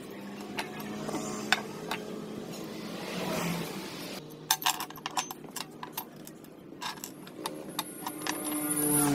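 Small painted steel press parts being handled and set down on a wooden board: scattered light metal clicks and clinks, thickest in the middle of the stretch, over a steady low hum.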